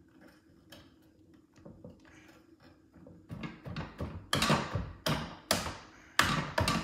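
Hand striking a stiff tire strap into the rail of a Rockymounts Tomahawk bike rack. A few faint clicks come first; from about three seconds in there is a run of loud knocks, roughly two a second. The strap is binding in its slot rather than sliding in.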